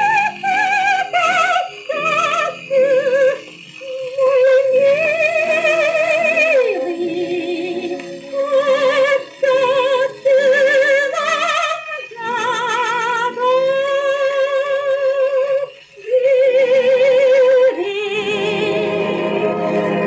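Shellac 78 rpm record playing a 1940 Soviet jazz-orchestra recording: a woman sings a melody in long held notes with wide vibrato over the band. Near the end the voice gives way to a fuller, lower sustained passage.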